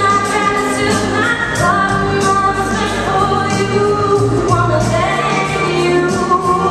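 A woman singing a song live into a handheld microphone, with musical accompaniment and a steady beat.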